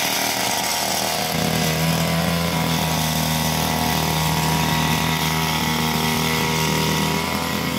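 Backpack brush cutter's small petrol engine running steadily while its nylon string head spins against the grass; the engine note changes and grows stronger about a second in.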